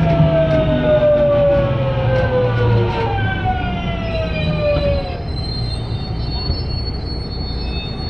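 Toshiba GTO-VVVF traction inverter of a JR West 207 series 1000 subseries electric train, a unit with an unusual-sounding inverter, whining with a steadily falling pitch as the train brakes. The tone steps to a new falling pattern about 3 s in and cuts out about 5 s in. After that only the rolling rumble of the train and a faint high whistle remain.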